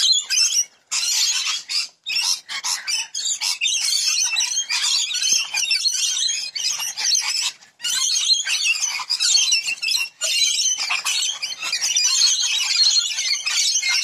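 A large flock of rainbow lorikeets screeching and chattering, many birds calling over one another without a break except for a few brief drop-outs in the first eight seconds.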